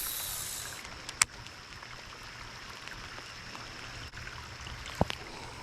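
Faint running river water with a brief hiss at the start, a sharp click about a second in and a low knock about five seconds in.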